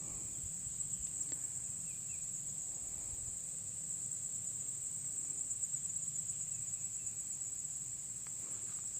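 Steady, high-pitched chorus of crickets trilling continuously.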